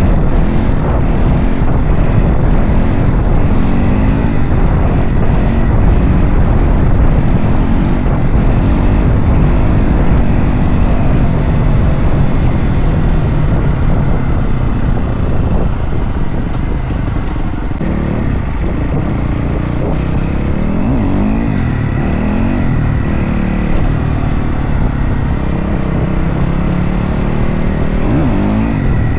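Dirt bike engine under way, its revs rising and falling several times, over heavy wind noise on the microphone.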